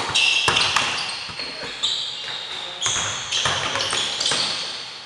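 Pickup basketball on a hardwood gym floor: sneakers squeaking in several short, high-pitched squeals as players cut and stop, with a few knocks from the ball bouncing.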